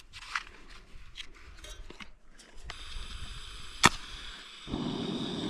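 Backpacking gas stove being lit: gas hisses from the opened valve, one sharp igniter click, then about a second later the burner catches and runs with a steady, loud rushing noise.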